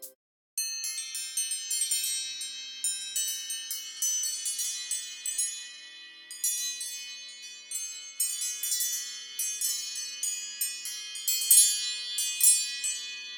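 iPhone ringtone of high, tinkling wind-chime notes struck in an irregular, overlapping cascade, starting about half a second in after a brief silence.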